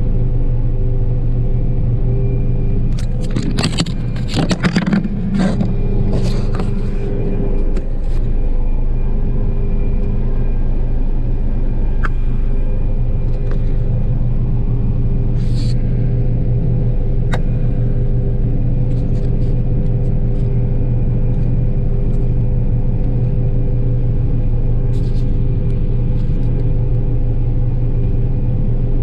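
John Deere 9770 combine running steadily, a loud low drone with a constant hum. About three to six seconds in there is a short cluster of knocks and rattles, with a few single clicks later.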